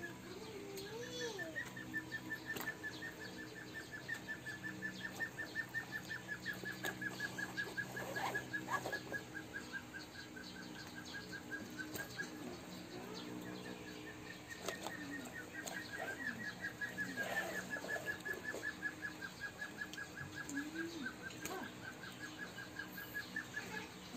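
A faint, fast, even animal trill of high chirps, about ten a second, breaks off about halfway through and resumes a couple of seconds later. A few faint short sliding calls are heard beside it.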